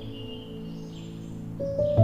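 Soft ambient background music of sustained held notes, with bird chirps mixed in; a new chord comes in near the end.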